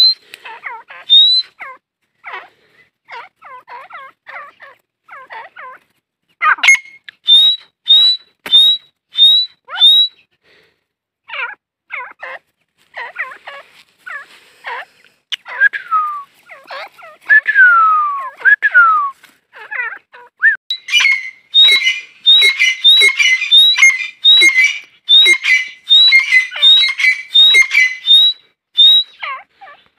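Female grey francolins calling: bursts of short, sharp, rising notes, with a few longer falling notes in the middle. The calls become a faster, denser run from about two-thirds of the way through.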